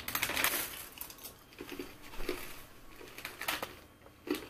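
Plastic snack wrapper of a bag of milk chocolate candies crinkling and rustling as it is worked at and pulled open by hand, with a few sharper crackles, the loudest near the end.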